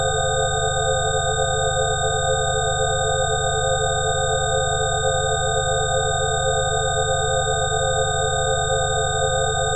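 Synthesized 'healing frequency' tones: several steady pure tones sounding together, a few of them wavering rapidly, over a low buzzing drone. The sound holds without any change.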